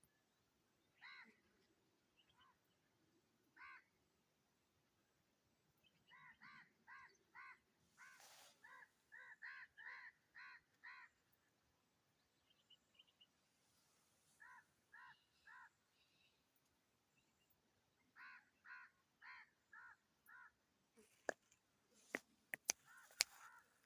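Black francolin calling: short harsh notes repeated in runs of three to seven, with pauses between the runs. A few sharp clicks near the end.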